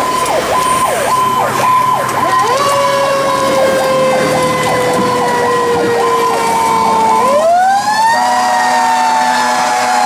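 Fire engine sirens: a Federal PowerCall electronic siren sweeping rapidly up and down for about seven seconds, together with a Federal Q mechanical siren whose tone slowly falls as it coasts down. About seven seconds in, the electronic sweeps stop and the Q siren winds up to a higher pitch, then slowly winds down again.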